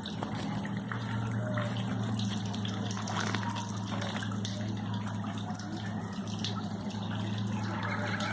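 Floodwater running steadily in the street with a continuous rushing sound. A steady low hum sits underneath it.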